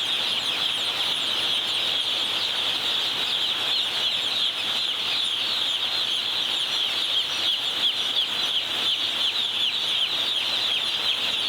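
A large flock of day-old broiler chicks peeping all at once: a dense, steady chorus of many overlapping high, short falling peeps.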